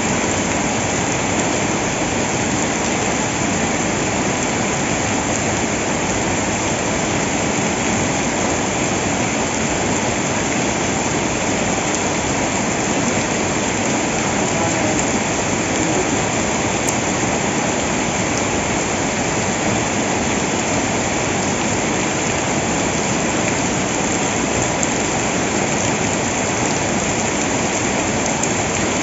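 Rushing water, a steady even roar that holds unchanged throughout.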